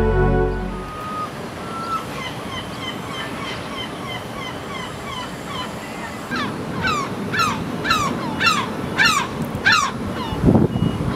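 Gulls calling over a steady open-air hiss: a few faint short calls at first, then from about six seconds in a loud series of about seven falling calls, roughly two a second. A low rumble comes near the end.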